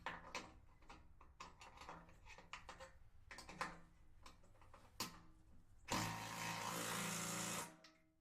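Light clicks and knocks of a socket and hardware being handled on a bolt. Then a power driver spins a socket for just under two seconds, running a nut down onto a bolt of a bucket hook mount before the final tightening by hand, and stops abruptly.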